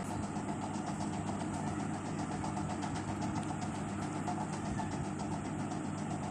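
A steady machine hum with a fast, even ticking running through it.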